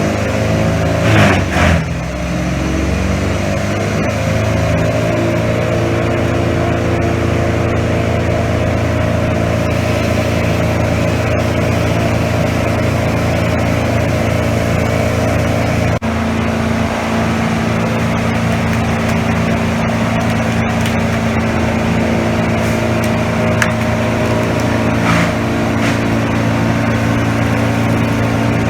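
A large engine speeding up over the first few seconds, then running steadily at high speed, with a brief break about halfway.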